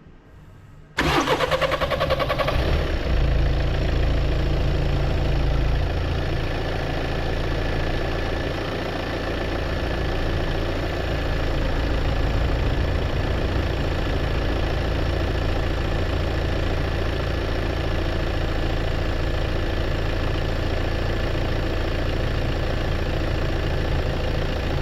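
Second-generation Volkswagen Tiguan's diesel engine starting. About a second in there is a brief crank, and then the engine catches and settles into a steady idle. This is the first start after a fresh fuel filter has been fitted.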